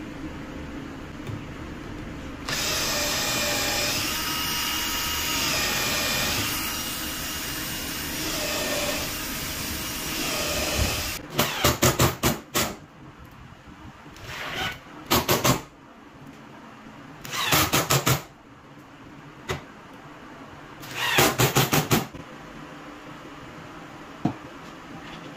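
Cordless drill-driver driving screws into plywood in four short bursts of rapid clicking. Before the first burst, a steady noise runs for several seconds.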